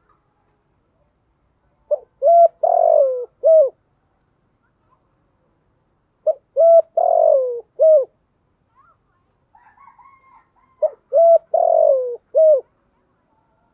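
Spotted dove cooing its song three times, about four seconds apart. Each phrase is two short coos, a long falling coo and a short closing note. Faint higher twittering comes just before the third phrase.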